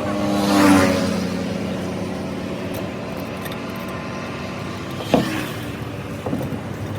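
Road vehicle passing close by, its engine swelling to a peak about a second in and fading, over a steady engine drone. A single sharp knock comes about five seconds in.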